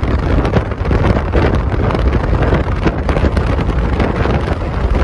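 Wind buffeting the microphone and road noise from a car moving at speed, a loud steady rush with a heavy low rumble.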